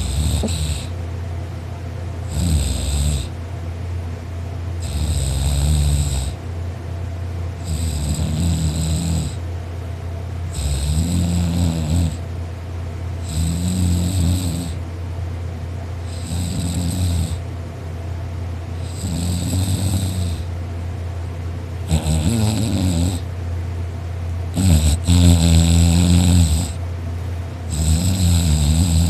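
A person snoring loudly in sleep, one snore about every three seconds, each with a rasping hiss, over a steady low hum.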